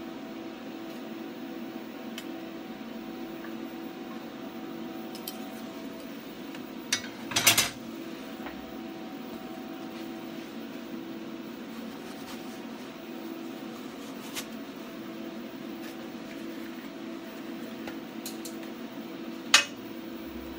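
A steady low electrical hum runs throughout. About seven seconds in comes a brief clatter of metal clinks, and near the end one sharp click, as steel plates and a magnetic welding angle are handled on the bench.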